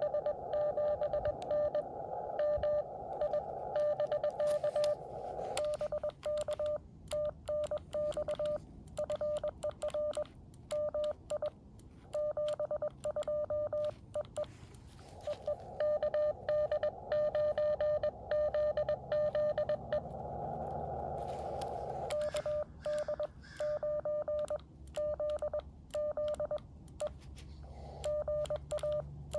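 Morse code tones from a Xiegu X6100 shortwave transceiver: a steady tone near 600 Hz keyed on and off in dots and dashes. Twice, in the first few seconds and again in the middle, the tone sits in a band of receiver hiss. In between, the keying comes with sharp clicks.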